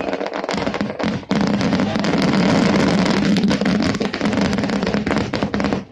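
Fireworks finale barrage: many aerial shells and crackling effects going off in rapid succession, a dense run of bangs and crackle that thickens into one continuous loud wash about a second in and cuts off suddenly at the end.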